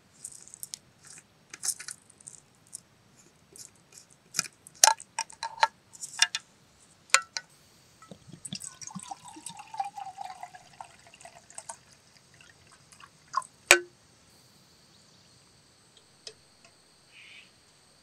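Metal clicks and clinks as an aluminium canteen's cap is unscrewed. Then water pours from the canteen into an enamel mug for about four seconds, the pitch sliding down as it pours. About two-thirds of the way through comes one sharp metal clank with a short ring as the mug is set down.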